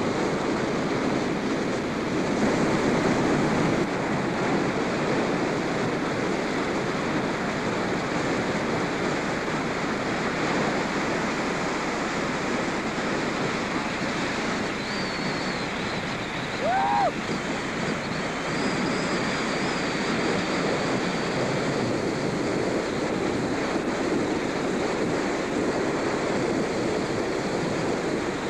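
Steady rushing wind noise on the microphone, with a brief chirp a little past the middle.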